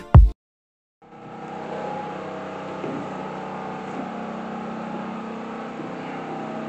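Background music cuts off at the start; after a moment of silence, a steady mechanical hum with several held tones, like a fan or motor running, continues unchanged.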